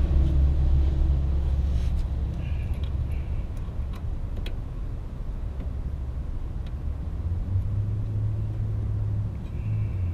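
Low steady rumble of a motor vehicle running nearby, its pitch stepping up slightly about three quarters of the way through. A few faint clicks from hand work on the steering shaft's lower joint.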